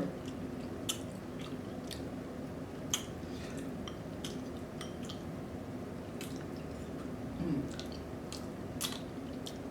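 Close-miked chewing: soft wet squishing mouth sounds with scattered sharp lip smacks and clicks.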